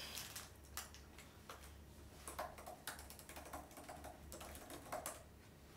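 Typing on a laptop keyboard: faint, irregular keystrokes with short pauses between runs.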